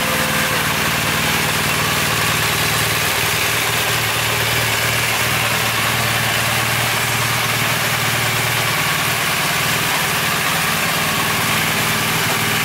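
BMW R1200GS's boxer twin engine idling steadily.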